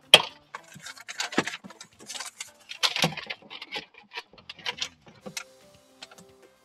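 Irregular crinkling, rustling and sharp taps from handling self-adhesive butyl sound-deadening sheets and their backing paper, peeling and pressing them into place by hand. The loudest tap comes right at the start.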